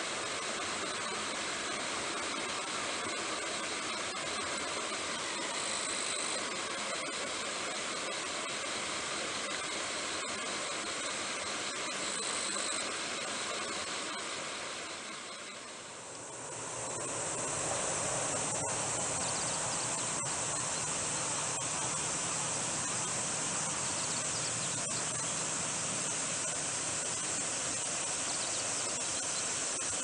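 Steady rush of flowing stream water, with light splashing in the first half as a ruddy-breasted crake bathes. About halfway through the sound dips and comes back as a brighter, hissier rush of water.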